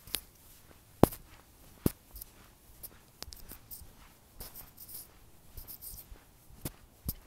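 Scattered sharp clicks and light rustling, with two louder knocks about one and two seconds in.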